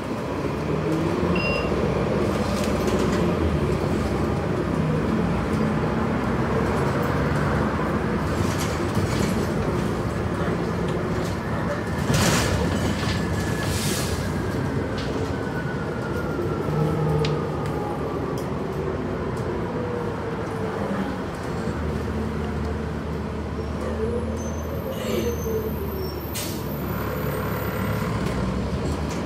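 Transit bus interior on the move: steady engine and road noise with clicks and rattles from the fittings, a sharp knock about twelve seconds in, and a whine that slowly falls in pitch through the middle.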